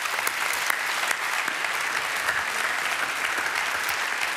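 Studio audience applauding: a dense, steady patter of many hands clapping.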